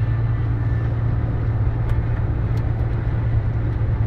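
Mercedes-Benz Actros truck running down the road: a steady low engine drone under tyre and road noise, with a couple of faint clicks about two seconds in.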